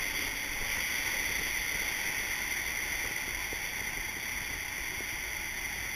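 Steady rushing of water and air as an inflatable raft slides through the enclosed tube of a water-coaster slide, an even hiss with no breaks.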